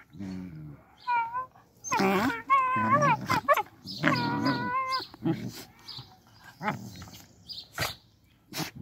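Puppies whining and yelping in high, wavering cries during rough play, with a low growl at the start and a few sharp clicks near the end.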